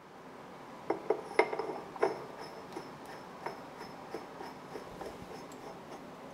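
Small steel machine parts clinking and tapping against each other and the cast-iron milling head as they are handled, a quick cluster of sharp clicks in the first two seconds, then sparser, lighter ones.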